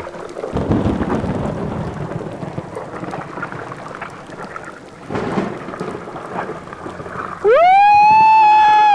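Wind and rough sea water washing and splashing around a small open boat at night. About 7.5 seconds in, a loud high tone rises quickly, holds steady for about a second and a half, and cuts off sharply.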